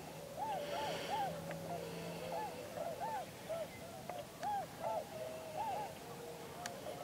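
A flock of geese honking: many short calls at different pitches, overlapping, about two a second.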